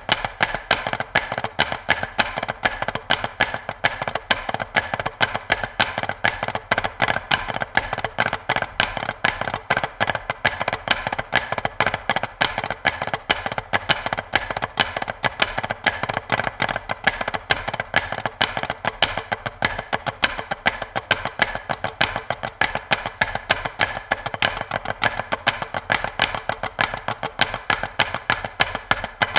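Wooden marching drumsticks striking practice pads, here the Offworld Invader V3 and the Xymox Reserve, in a steady run of sharp, evenly spaced strokes with a dry, woody tap.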